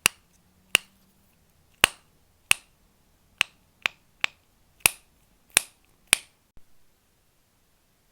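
A fidget toy clicking: about ten sharp, bright clicks at uneven intervals, then a fainter one, after which it stops.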